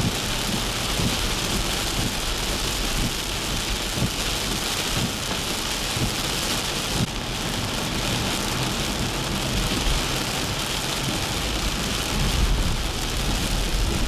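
Heavy rain pelting a car's windshield and roof, a steady loud hiss, heard from inside the moving car, with a low rumble of the car and wet road underneath that swells slightly near the end.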